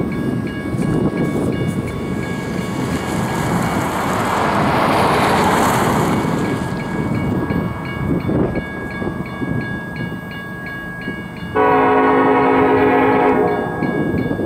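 A grade-crossing bell rings in evenly spaced strokes over the low rumble of an approaching freight train. About eleven and a half seconds in, the lead locomotive's air horn, on a Ferromex SD70ACe, sounds one long blast and cuts off about two seconds later.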